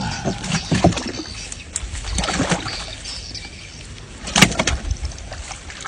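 Water sloshing and splashing, with a few sharp knocks and a steady low rumble.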